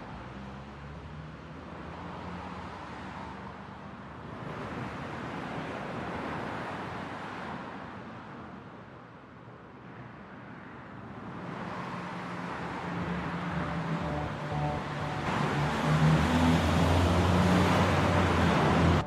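Car and road noise: a rushing sound that swells and fades, then a car's engine hum and tyre noise growing steadily louder over the last several seconds before cutting off abruptly.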